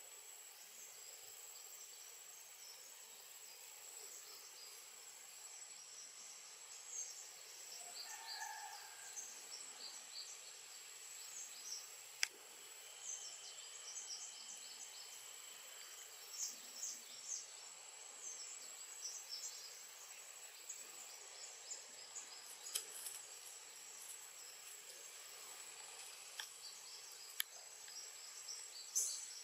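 Faint forest ambience: a steady high insect whine with scattered short high chirps, a brief lower call about eight seconds in, and a few sharp clicks.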